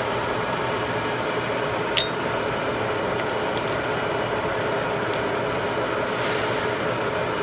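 A few sharp metal clinks, the loudest about two seconds in, as an aluminium workpiece and a metal block are set against brass pins in a milling-machine vise, over a steady machine hum.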